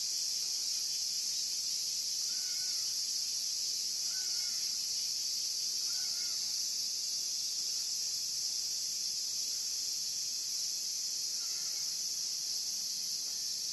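Steady high-pitched drone of an insect chorus, with faint short calls, likely birds, every couple of seconds.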